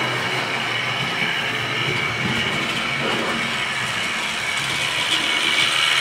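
Hornby Triang OO gauge model freight train running on the layout track: a steady mechanical whirr of the small electric loco and its wagons' wheels, growing louder near the end as the train passes close.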